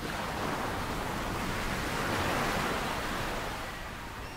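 Ocean surf sound effect: a single wave swells up and washes back out.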